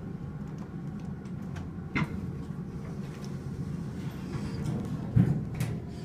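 Otis elevator car travelling down, a steady low hum of the ride inside the car. A short click about two seconds in and a louder thump a little after five seconds.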